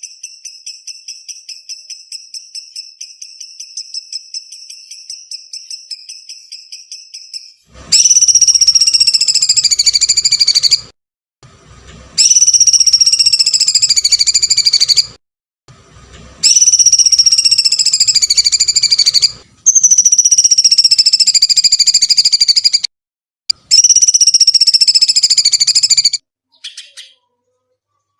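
Songbird masteran recording: a fast, even, high trill for about the first eight seconds, then five loud, high, harsh song phrases of about three seconds each, each falling slightly in pitch, with short pauses between.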